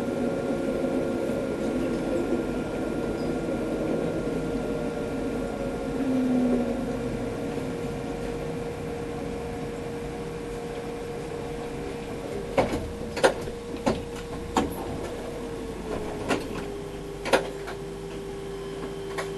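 Inside an Alstom Citadis 302 tram: steady running rumble with a held whine, easing off as the tram slows. Several sharp clicks come in the last few seconds, and the whine drops slightly in pitch about three seconds before the end.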